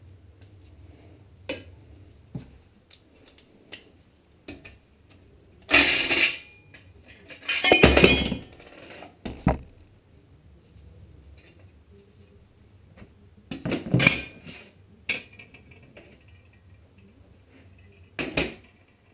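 Loose metal engine parts clinking and clattering in several separate bursts, loudest around six and eight seconds in, as bolts and a sheet-metal bracket are taken off the top of a small engine's cylinder head and handled on a workbench.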